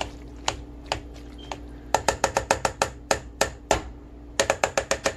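A spoon knocking and clacking against the sides of a stainless steel pot while stirring thick pasta: a few single knocks in the first two seconds, then two quick runs of rapid clicks, about seven a second.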